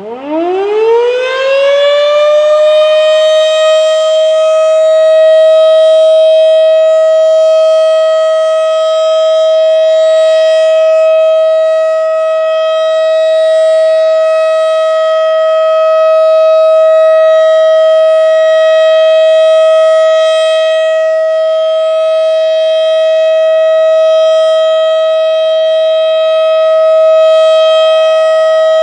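Federal Signal Model 7 electromechanical civil defense siren starting up, its pitch rising quickly over the first two to three seconds to a steady, loud tone that is then held: a routine siren test.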